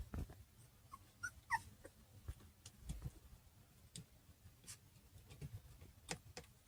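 Newborn puppy giving a few short, high whimpering yips about a second in, among scattered faint taps and bumps.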